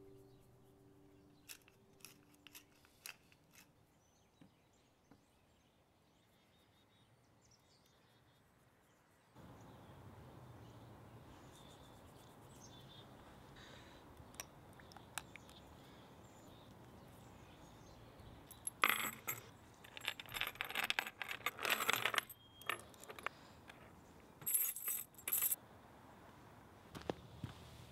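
Metal chain links jangling and clinking in several loud bursts as the chain is handled, over a faint steady outdoor background. A few light clicks come in the first seconds as music fades out.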